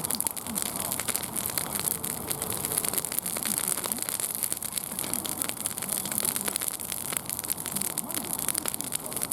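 Wood fire crackling: a dense, irregular run of small snaps over a steady hiss.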